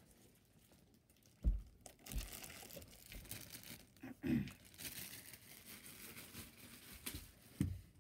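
Rustling and crinkling from things being handled, with several dull knocks; the loudest knock comes about one and a half seconds in.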